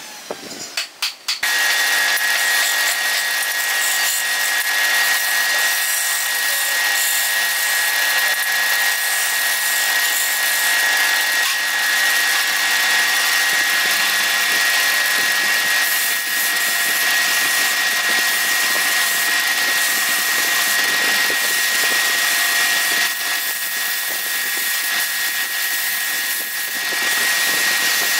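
Wood lathe running with a steady whine while a hand-held turning tool cuts into the spinning workpiece, a continuous harsh scraping hiss that starts about a second and a half in after a few short clicks.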